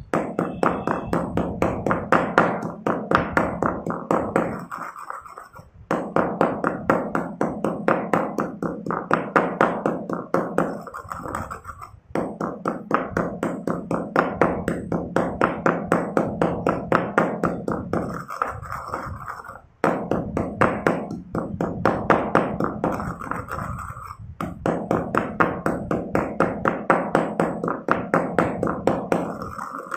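Stone pestle grinding crushed chalk powder in a stone mortar, a quick rhythmic crunching and knocking at about three strokes a second, in runs of several seconds broken by short pauses.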